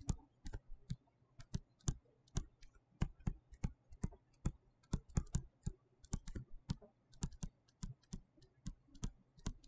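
A stylus tapping and clicking on a tablet screen while writing by hand: a run of quiet, sharp, irregular clicks, several a second.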